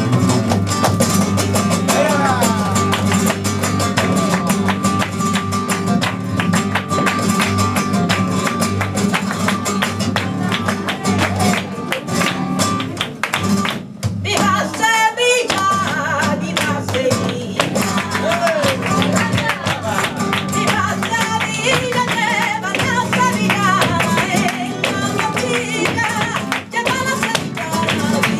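Live sevillanas flamenco music: flamenco guitar strumming with a wavering sung voice, over dense rapid percussive clicking.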